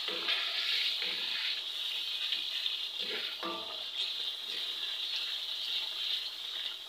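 Beef, tomatoes and spice masala sizzling in a karahi, with a steady high frying hiss, while a wooden spatula stirs and scrapes through it in short strokes every second or so.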